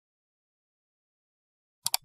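Near silence, then two quick sharp clicks close together near the end.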